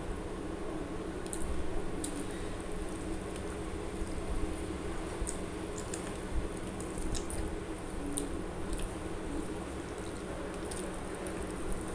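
Fingers squishing and mixing pea pulao rice on a steel plate: soft wet squelches with scattered faint clicks, over a steady low hum. Near the end, onion gravy is poured onto the rice.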